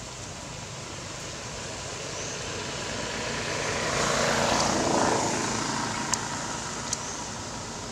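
A vehicle passing: a rushing noise that builds to a peak about four to five seconds in, then fades. A couple of faint ticks come near the end.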